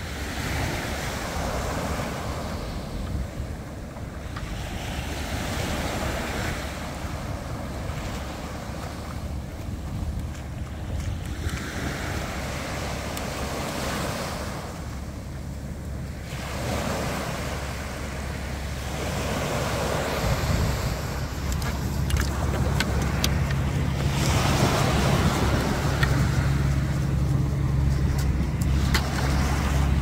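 Small waves washing up on a sandy beach, in slow surges every few seconds. About two-thirds of the way through, a boat engine's low steady hum comes in and grows louder.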